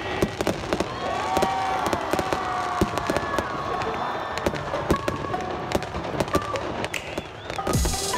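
New Year fireworks going off in quick, irregular bangs and crackles, with voices shouting over them. Music comes in near the end.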